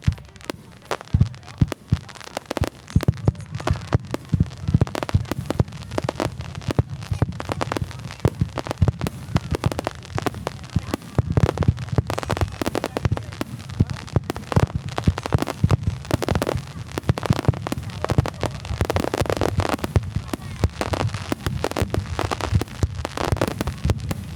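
Starmine fireworks barrage over the sea: shells launching and bursting in quick succession, a dense run of overlapping bangs and crackles that thickens about two-thirds of the way in.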